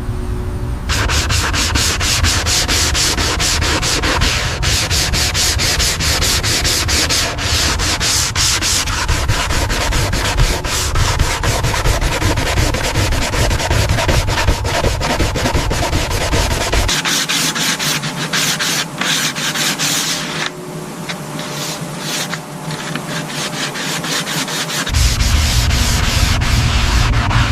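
Sanding: fast, continuous back-and-forth rubbing strokes of abrasive on a surface. Under it a deep rumble drops away for several seconds past the middle and then returns near the end.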